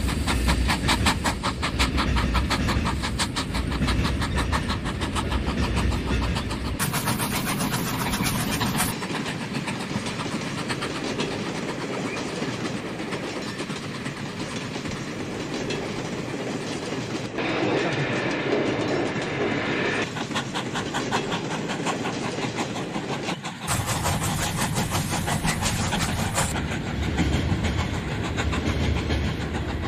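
Model train tank wagons rolling along sectional track, their wheels making a rapid, steady clicking over the rail joints. The clatter grows louder and softer in stretches.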